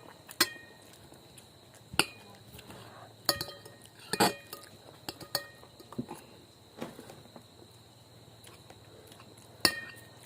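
Cutlery clinking and scraping on a plate during a meal: scattered sharp clinks roughly every second, a few of them ringing briefly, over a faint steady high tone.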